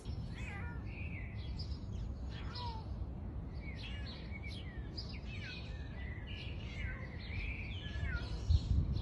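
A domestic cat meowing again and again, short calls that bend in pitch, over a steady low background rumble.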